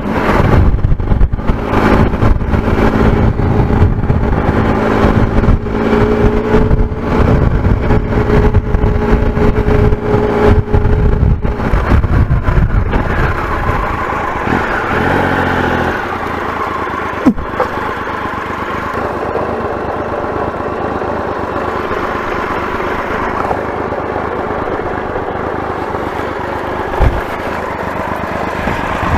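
Triumph Explorer's three-cylinder motorcycle engine running on the move, with wind buffeting the microphone over the first half. About halfway through the engine note steps down and the sound settles to a quieter, steady low run, broken by two short knocks.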